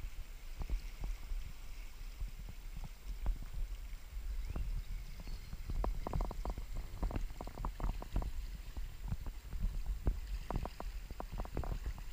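Fast-flowing river water swirling against a rocky bank, under a low, muffled rumble of wind on the camera's microphone, with frequent short knocks throughout.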